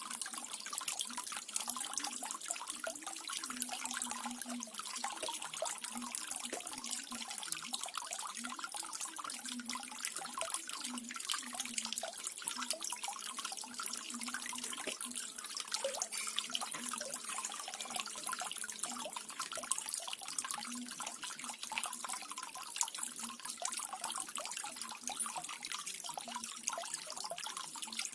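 Small garden waterfall: water spilling and splashing steadily, with a fine trickling and dripping patter.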